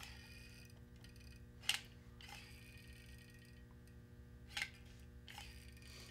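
Quiet clicks from a manual caulking gun's trigger and plunger as globs of caulk are squeezed onto screw heads: two sharp clicks about three seconds apart with a few fainter ones between, over a low steady hum.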